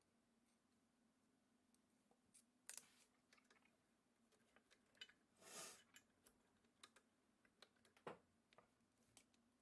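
Faint, scattered small metal clicks of a Lishi AM5 pick-decoder being worked inside a brass American padlock, with a short soft rustle about halfway through.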